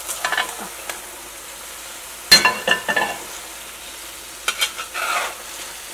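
Masala sizzling gently in a pot as fried chicken pieces are tipped in and stirred through it, with a metal spatula clinking and scraping against the pot several times about halfway through.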